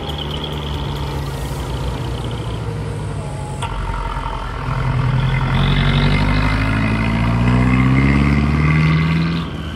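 Engine of a small flatbed carrier truck running steadily, then revving up as the truck pulls away, its pitch rising and the sound growing louder about halfway through before fading near the end.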